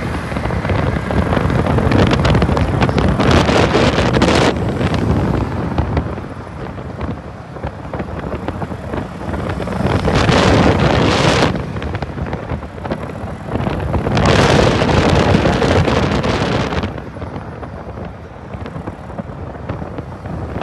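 Wind buffeting the microphone of a camera riding on a moving street go-kart, mixed with the kart's engine and tyre road noise. The rush swells in three long surges and eases off between them.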